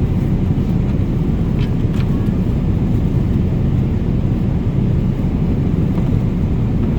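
Steady low rumble of a moving vehicle, with a couple of faint short clicks about two seconds in.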